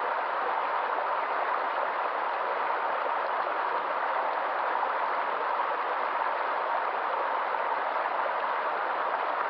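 Flowing water making a steady, even rushing noise that does not change.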